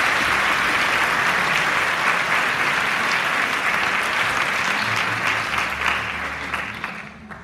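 Audience applauding in a concert hall, a steady dense clapping that dies away near the end.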